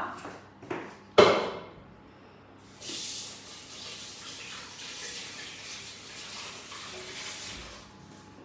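Kitchen tap running into the sink for about five seconds, a steady hiss of water that stops near the end. A sharp knock about a second in, before the water starts, is the loudest sound.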